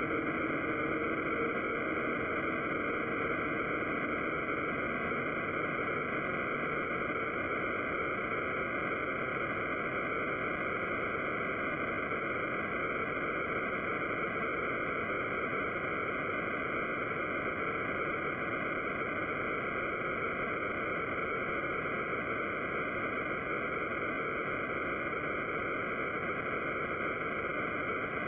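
Live electronic noise music: a steady, dense wash of synthesized noise, strongest in the upper middle, with faint held low tones fading out in the first few seconds.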